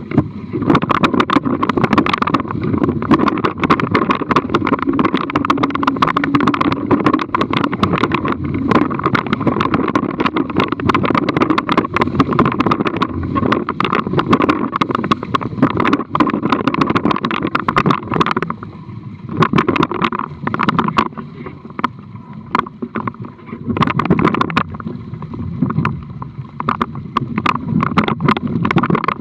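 Water rushing and splashing along the hulls of a Topaz Xtreme sailing catamaran under way at speed, with frequent sharp slaps of waves and spray and wind buffeting the microphone. The rush drops back for a few seconds about two-thirds of the way through, then picks up again.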